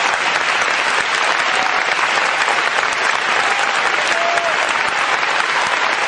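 Theatre audience applauding steadily and densely at a ballet curtain call.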